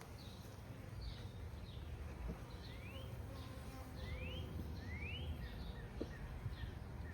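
Honeybees buzzing softly around an open hive, while a bird calls repeatedly: short chirps throughout and three rising whistled notes in the middle.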